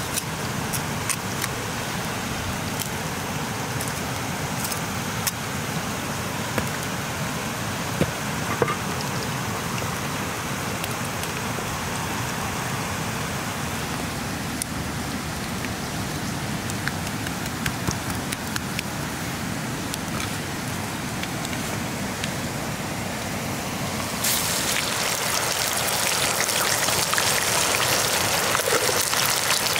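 Open wood fire crackling, a steady hiss with occasional sharp clicks. About three-quarters of the way through, a louder, higher sizzle sets in as a whole chicken fries in hot oil in a cast-iron pan.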